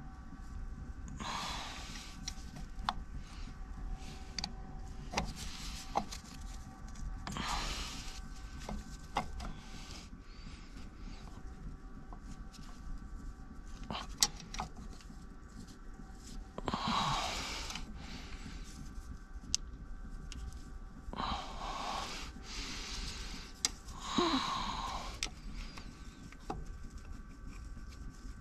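Scattered light clicks and taps of small metal parts being handled and fitted, with several heavy breaths or sighs over a steady low hum.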